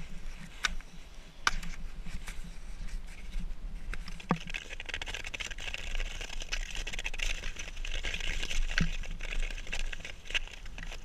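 Long-distance ice skates scraping over thin new lake ice, with a steady hiss of the blades from about four seconds in. The young ice sings around them: sharp pings and cracks, two of which ring down in pitch.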